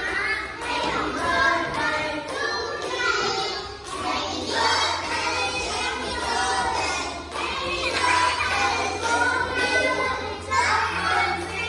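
Young children singing a birthday song together, with music playing along.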